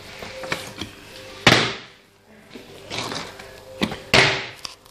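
Partly water-filled plastic bottle landing hard on the floor twice as it is flipped, once about a second and a half in and again near the end, each a loud thud with a short fading tail, with lighter knocks of handling in between.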